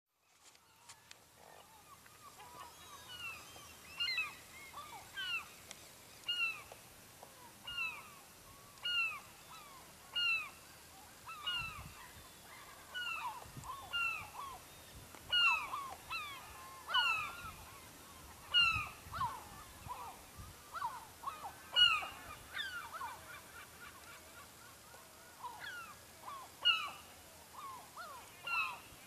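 Seagulls calling over and over, a short falling cry about once a second, some calls overlapping, beginning about three seconds in.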